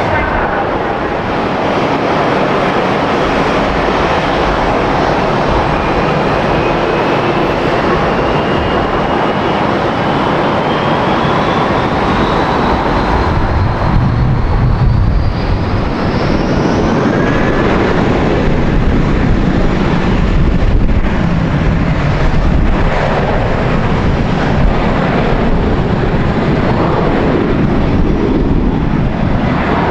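Jet airliner engines running loud: a steady rumble with a high whine that climbs in pitch over about ten seconds, then a deeper, wavering rumble through the second half.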